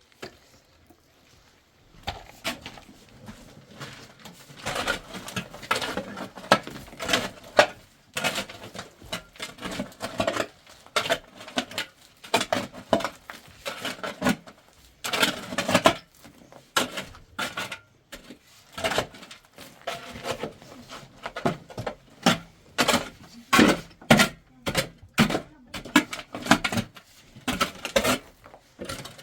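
Irregular clattering and knocking of hard objects being handled, sometimes in quick runs of sharp clacks.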